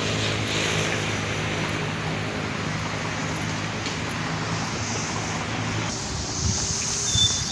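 An engine hums steadily over wind noise on the microphone, and the hum cuts out about six seconds in.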